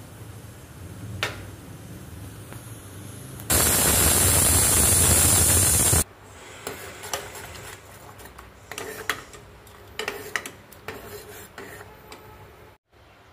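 A click at the gas stove knob, then a loud steam hiss from the pressure cooker lasting about two and a half seconds and cutting off sharply. After that, a metal spoon scrapes and clinks against the aluminium pressure cooker as the cooked dal is stirred.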